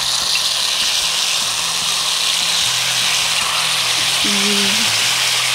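Chicken and sauce sizzling on a hot sizzler plate, a steady hiss. A brief voice sound comes about four seconds in.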